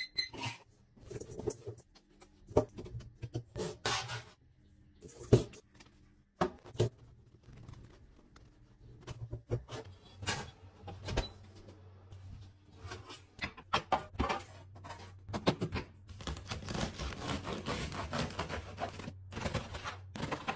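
A digital kitchen timer beeps at the start, followed by a series of knocks and clatters from handling kitchenware. Near the end a serrated bread knife saws through the crust of a loaf for about four seconds.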